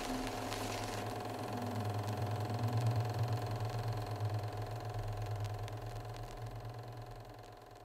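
Low, fluttering machine-like hum with a steady higher tone above it: a sound-design drone that swells to about three seconds in, then slowly fades away.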